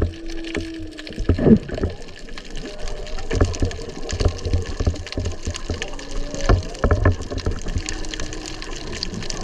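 Humpback whale song heard underwater: a few short held low moans and rising-and-falling whoops, under louder crackles and knocks of water noise.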